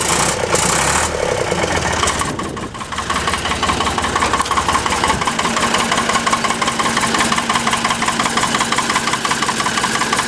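Ford 555A backhoe engine idling shortly after a cold start, with a steady, rapid rhythmic clatter. The engine briefly quietens about two and a half seconds in, then settles back into an even idle.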